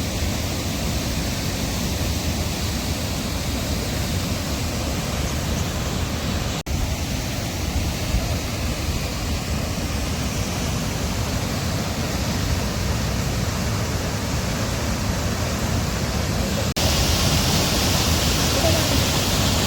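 Waterfall's steady rush of falling water. It breaks off for an instant about a third of the way in, and after a second brief break near the end it comes back louder and brighter.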